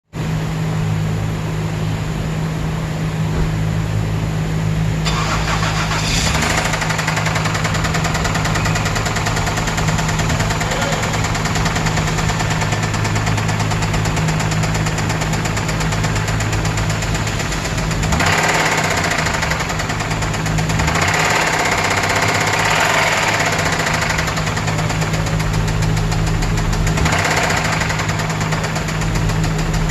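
Car engine running with rod knock: a fast, steady knocking from a worn connecting-rod bearing over the engine's hum. It grows louder and brighter a few times, about 5 seconds in, again from about 18 to 24 seconds, and near the end.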